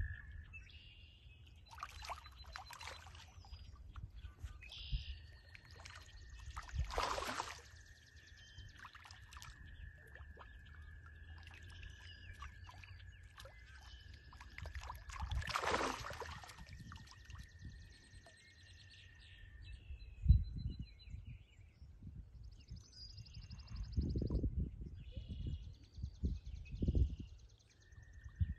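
Spawning koi thrashing and splashing in shallow, weedy water. The splashing comes in repeated bursts, loudest about 7 s and 16 s in, with a cluster of splashes near the end.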